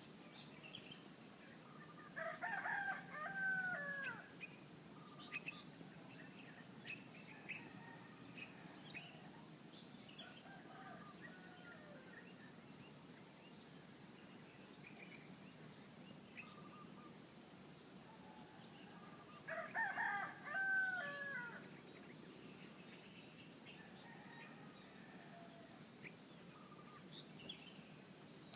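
Rooster crowing twice, each crow about two seconds long and the second coming some seventeen seconds after the first, with small birds chirping here and there in between.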